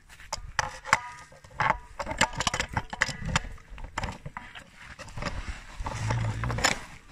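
Brown bear licking and mouthing a person's hand up close: a run of irregular wet smacks and clicks, with a short low moan about six seconds in.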